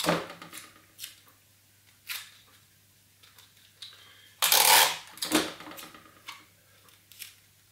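Cardboard and sticky tape being handled: short intermittent rustles and rubs, with one louder rasping scrape of about half a second around four and a half seconds in.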